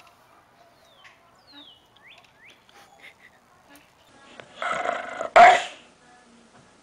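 A dog barking twice in quick succession about four and a half seconds in, the second bark sharper and louder.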